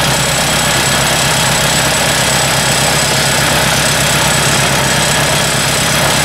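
Ford 800 tractor's four-cylinder engine running steadily with its valve cover off.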